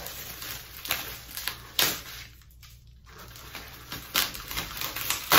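Plastic bubble wrap crinkling and crackling as it is pulled off a cup by hand, in irregular crackles with a quieter stretch midway and a sharp crackle near the end.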